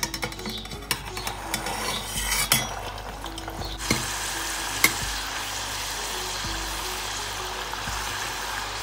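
A metal slotted spoon clicking against a steel pot as spring rolls are lowered into hot oil. From about four seconds in comes a steady sizzle of the rolls deep-frying.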